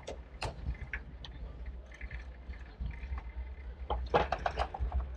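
Bicycle being ridden along a city street: a steady low rumble with scattered clicks and rattles, and a short burst of rattling about four seconds in.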